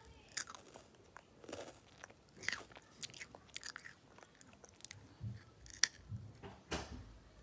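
Close-up crunching and chewing of crunchy orange cheese curls: irregular crisp crunches as bites are taken and chewed, with a few louder crunches.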